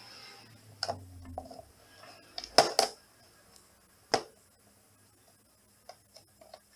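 Cat pawing at a small plastic hamster carrier: a handful of sharp clicks and knocks of paw and claws against the plastic case, the loudest pair about two and a half seconds in, then a few faint ticks near the end.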